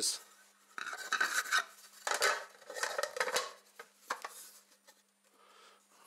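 Hard plastic parts of a Festool cyclone pre-separator being handled and fitted together: several short knocks and scrapes over the first four seconds or so.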